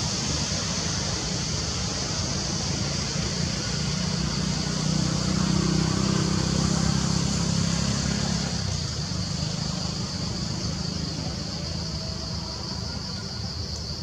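Outdoor background noise: a low engine rumble that swells in the middle and fades, like a motor vehicle passing, over a steady high hiss.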